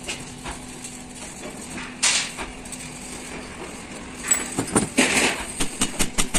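Hand tools knocking and clinking on a truck alternator's metal housing as it is taken apart, with a noisy scrape about two seconds in and a quick run of sharp metal knocks in the last two seconds as a hammer is used.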